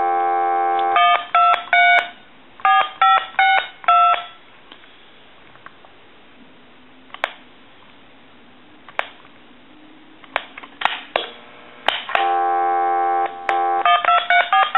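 Harris TS22 lineman's buttset sounding dial tone through its amplified monitor speaker, then a quick run of about nine touch-tone DTMF beeps as digits are keyed in. Several seconds of scattered key clicks follow, then dial tone comes back about twelve seconds in and another quick string of DTMF beeps is keyed.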